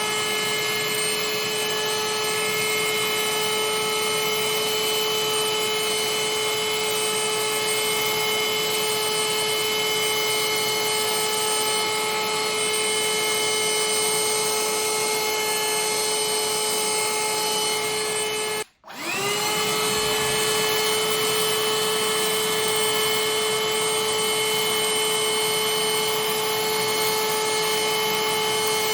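Cordless handheld vacuum cleaner running with a steady high whine. About two-thirds of the way through it switches off for an instant, then spins back up, its pitch rising to the same steady note.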